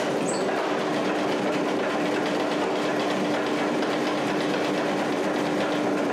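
Power hammer running steadily, its dies striking red-hot steel in a fast, even run of blows as a bar is drawn down to round, with a steady hum underneath.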